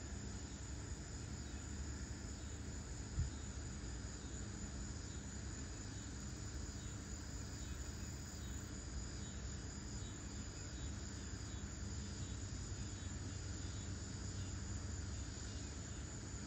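Steady high insect chirring over a low rumble, with one short thump about three seconds in.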